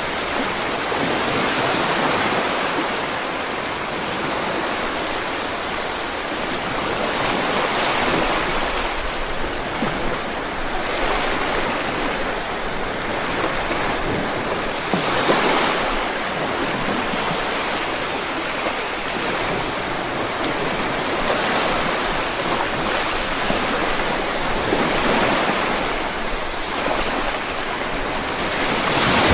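Steady, heavy rainfall as a dense hiss, swelling and easing every few seconds.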